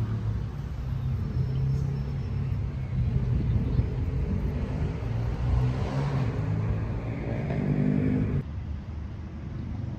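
Subway train running: a steady low rumble, with a whine that rises in pitch from about six seconds in. The sound drops abruptly a little after eight seconds.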